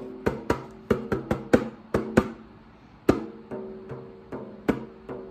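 A homemade djembe, a balloon skin stretched over a plastic cup, tapped by hand in a rhythm of sharp hits with a short ringing tone. The hits come in an uneven flurry at first, then settle into a steady beat of about two and a half hits a second.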